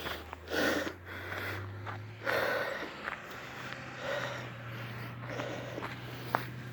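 A person breathing hard, heavy breaths coming about once a second over a steady low hum: out of breath after hiking uphill.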